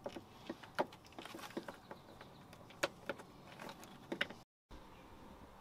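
Hand pump working gear oil into a truck's rear differential through a hose in the fill hole: faint, irregular plastic clicks and clacks. The sound stops abruptly about four and a half seconds in.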